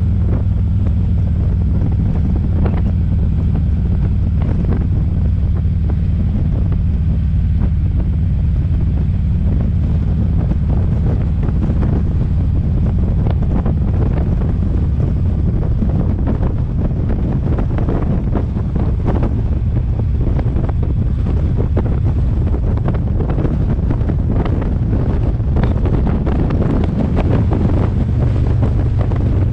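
Steady low rumble of wind buffeting the microphone along with road noise from a moving car.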